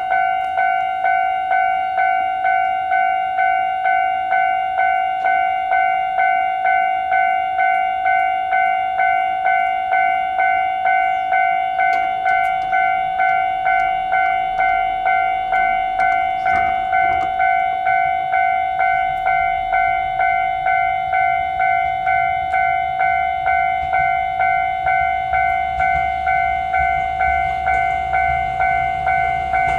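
Japanese railway level-crossing warning bell ringing steadily at about two strokes a second, the signal that a Gakunan Railway train is approaching. Near the end the low rumble of the approaching train rises beneath it.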